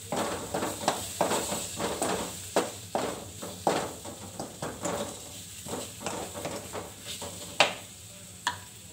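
Wooden spatula stirring and scraping a tomato-onion masala in a metal kadai, a rapid, uneven run of scraping strokes over a light sizzle. It ends with two sharp knocks about a second apart near the end.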